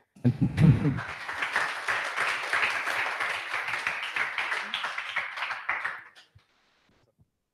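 A man's voice briefly at the start, then an audience applauding, many hands clapping for about five seconds and dying away near the end.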